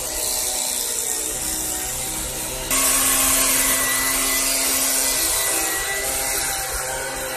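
Stihl BG 65 two-stroke handheld leaf blower running steadily, its engine note under the rush of air from the tube, fitted with a new aftermarket carburetor. It gets suddenly louder about two and a half seconds in and stays that way.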